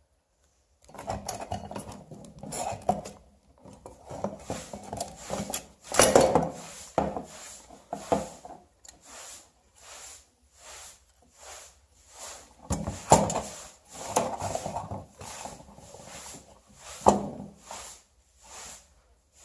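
Handling noise from an old metal hurricane lantern being worked on by hand: irregular rubbing, scraping and clinking of its metal frame and wire. Three louder knocks come about a third of the way in, about two thirds of the way in, and near the end.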